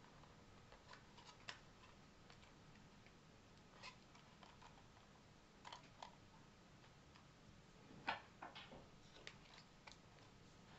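Faint, irregular clicks and taps of 3D-printed plastic clock parts being handled and shifted by hand while the mechanism is adjusted, the loudest click about eight seconds in.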